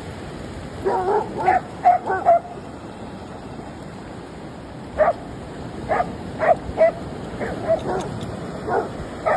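A dog barking and yipping in short, sharp barks: a quick cluster about a second in, then a string of barks from about five seconds in. Steady surf runs underneath.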